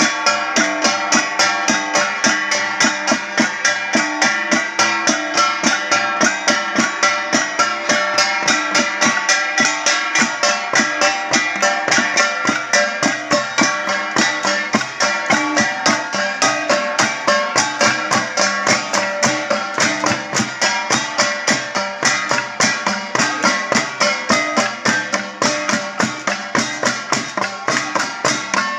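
Ifugao gongs struck in a fast, steady rhythm, about three strikes a second, each stroke ringing with several bright tones: traditional gong music for a ritual dance.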